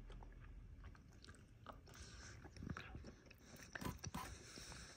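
Faint chewing of a mouthful of chicken pot pie, with soft irregular clicks; near the end a few sharper clicks as a metal fork digs into the pastry crust in its paper box.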